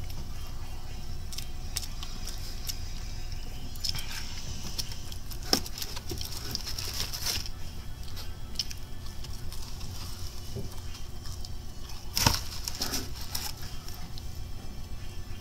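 A person chewing fried chicken, a quick regular chewing rhythm with small crackles and clicks, and two sharp knocks, one about five seconds in and another about twelve seconds in.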